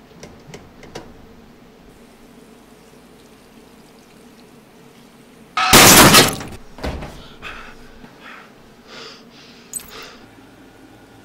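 A wall mirror smashing: one sudden, loud crash of breaking glass about halfway through, followed by a few smaller knocks and bits of glass falling. Before it, only quiet room tone with a few faint clicks.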